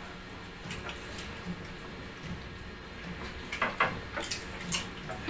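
Quiet eating sounds: hands picking at fish on plates, with scattered soft clicks and taps.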